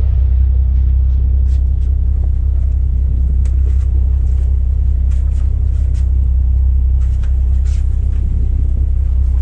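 Motorboat engine running with a steady low rumble, a few faint ticks over it.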